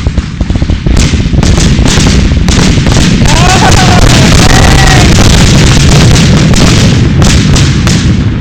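Fireworks going off in a dense, continuous barrage: overlapping booms and sharp crackles over a steady low rumble. A few brief rising-and-falling whistling tones sound near the middle.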